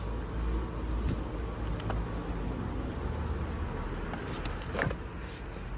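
Scattered handling clicks and light rattles over a steady low rumble, with one sharper click near the end.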